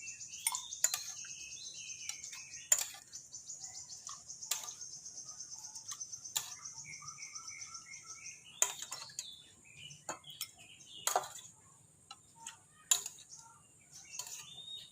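Birds chirping in short falling phrases over a fast, high-pitched trill that stops about two-thirds of the way through, with sharp clinks every second or two.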